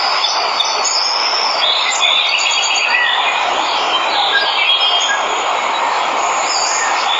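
Steady rush of a waterfall, with many birds chirping and whistling over it in short, overlapping high calls, some of them quick rising notes.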